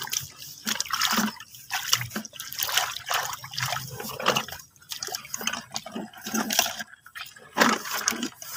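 Shallow water splashing and dripping in irregular bursts as hands work through it.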